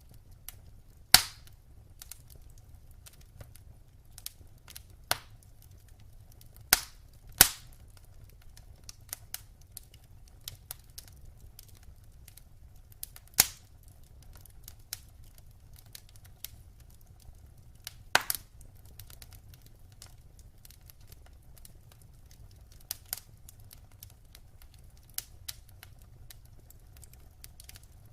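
Wood fire crackling in a fireplace: a steady scatter of small ticks and snaps with a handful of sharp, louder pops, the loudest about a second in, over a faint low rumble.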